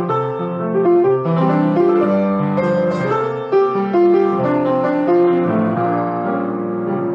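Grand piano played solo, with chords and a melody that moves through a new note every fraction of a second.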